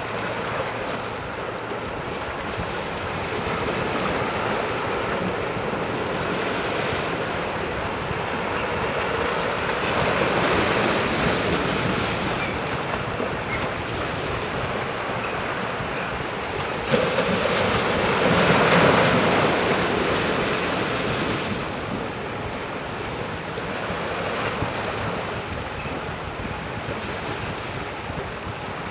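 Steady rush of water with wind noise on the microphone. It swells about ten seconds in, then rises suddenly and more strongly for a few seconds after about seventeen seconds.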